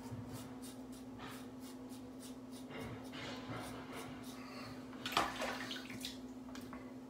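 Safety razor scraping through five days' stubble on the neck in a quick series of short strokes, about three a second. Near the end, water splashes as the razor is rinsed at the sink. A steady low hum runs behind.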